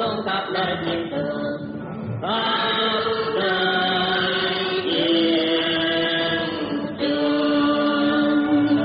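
Cải lương singing: a voice holding long, drawn-out notes that shift to a new pitch every second or two, with music beneath.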